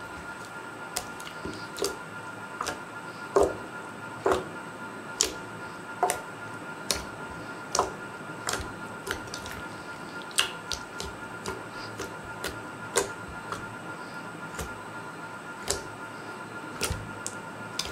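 Fluffy slime being poked and pressed with fingertips in a glass bowl, giving short sharp pops and clicks as air escapes, about one or two a second. A faint steady tone sits underneath.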